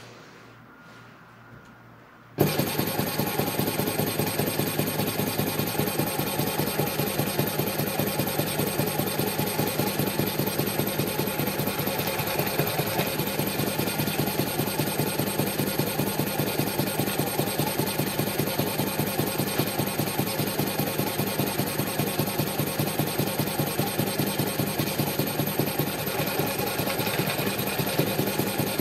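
GIM8008 brushless gimbal motor driven by a VESCular6 controller with rapidly alternating +15 A and -15 A current commands, so the rotor is jerked back and forth. It starts suddenly about two seconds in and runs as a fast, even clicking buzz.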